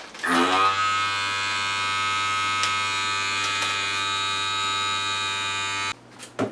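Handheld electric vacuum sealer pump running steadily against a zip freezer bag, drawing the air out of it, then switching off suddenly after about five and a half seconds. A single click follows near the end.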